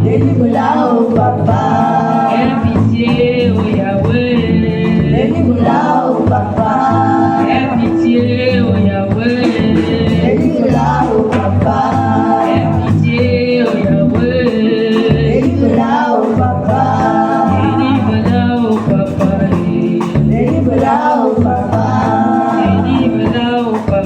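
Gospel singing with voices over instrumental accompaniment, continuous and at a steady level.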